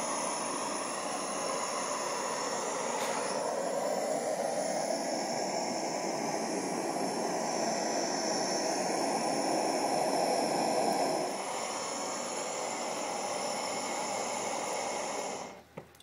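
Propane burner firing into a small swirl furnace, fed from a 16-ounce propane cylinder: a steady rushing hiss that swells in the middle, then cuts off suddenly near the end as the gas is shut off.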